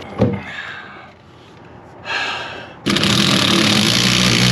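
A small motor runs with a steady whirring noise and low hum for about two and a half seconds, starting suddenly about three seconds in. A single knock comes just after the start.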